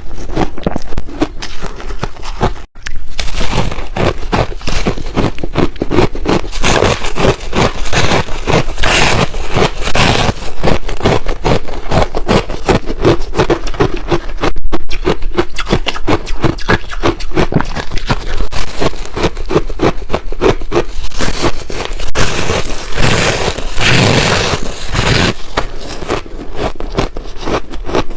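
Hard ice being bitten and chewed right at the microphone, a dense run of rapid crunches and crackles, broken by two very brief pauses.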